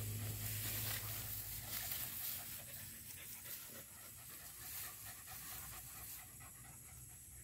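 Small aspin dog panting in a quick, steady rhythm.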